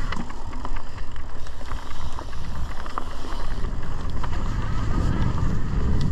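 Mountain bike riding a dirt trail: a steady rumble of tyres and wind on the microphone, with frequent sharp rattles and clicks from the bike. The rumble grows louder near the end.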